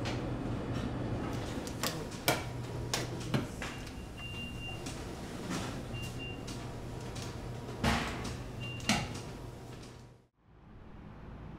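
Bakery workroom noise: a steady machine hum under a few knocks and clatters, with three short electronic beeps, fading out near the end.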